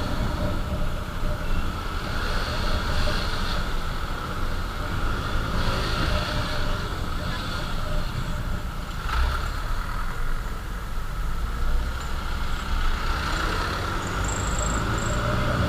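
Road noise while riding a motorcycle in traffic: steady wind rush on the helmet microphone over engine and tyre rumble, with a brief knock about nine seconds in.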